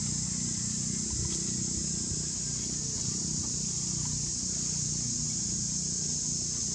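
Steady high-pitched drone of insects, unbroken throughout, over a low, even rumble.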